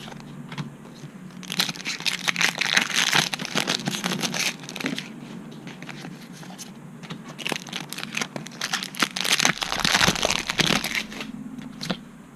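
Foil Pokémon booster pack wrappers being torn open and crinkled, in two bouts of crackly rustling: one starting about a second and a half in, the other a few seconds before the end, with quieter handling of the packs and cards between them.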